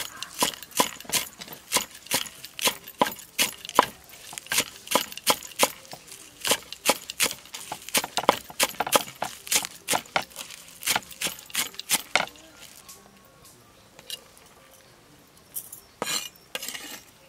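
Meat cleaver chopping spring onions on a wooden chopping block: quick, steady knocks, about three a second, stopping about twelve seconds in, then a few more chops near the end.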